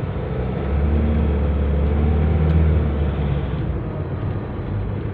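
Nissan NV350 van driving: steady engine and road rumble, louder from about a second in until nearly four seconds in, then easing off.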